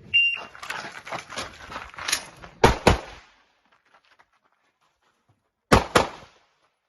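Glock pistol shots in an IPSC stage: a fast string of shots, then two quick pairs (double taps), the second pair after a pause of about three seconds.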